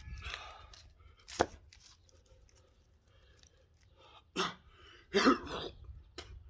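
Axe striking logs to split firewood: three sharp chops, the first about a second and a half in and two more around four and five seconds in. The last chop is the loudest and lasts longest.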